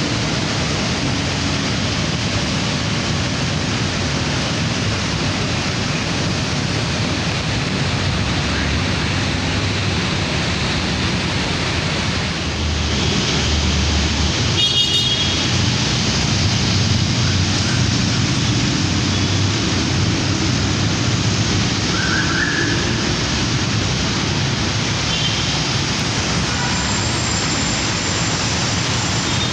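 Steady road traffic noise of passing vehicles, probably on wet tarmac. It swells with a deeper rumble about halfway through as a heavier vehicle goes by, with a few brief high tones mixed in.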